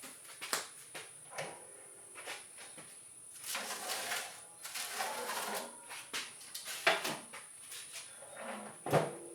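Scattered clicks, knocks and short rustles of objects being handled, with a sharper knock near the end, over a faint steady high whine.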